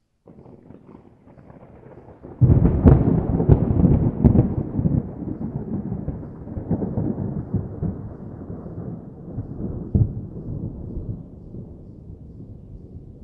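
Thunder: a low rumble breaks about two seconds in into a loud peal with several sharp cracks, then rolls on and slowly fades, with one more crack about ten seconds in.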